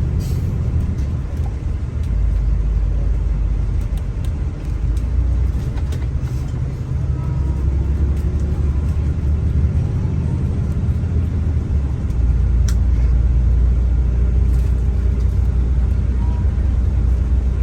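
Steady low rumble of a moving transit bus heard from inside the cabin, engine and road noise with a few light rattles. About twelve seconds in the drone drops lower and gets louder.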